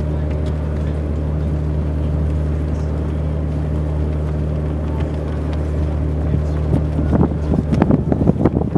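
A boat's engine drones steadily at one unchanging pitch. About seven seconds in, gusts of wind begin buffeting the microphone in uneven bursts.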